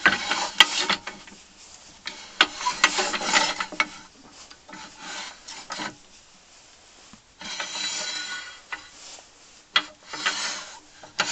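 A cast iron lathe fitting slid back and forth along freshly cleaned and oiled cast iron bed ways: a scraping, rubbing slide in about five strokes, with small clicks. It moves freely, showing the bed is clean and no longer rusty.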